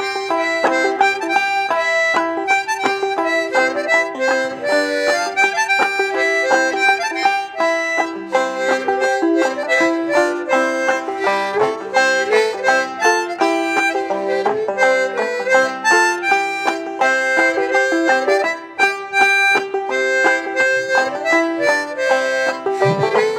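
Harmonica in a neck rack carrying the melody over clawhammer-style banjo strumming, an instrumental break between sung verses of an old-time song.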